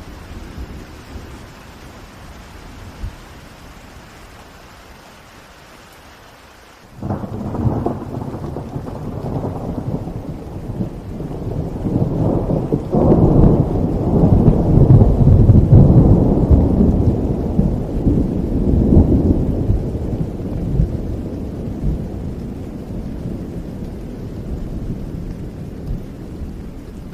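Rain falling steadily, then about seven seconds in a long rolling thunder rumble breaks in suddenly, builds to its loudest in the middle and slowly dies away under the rain.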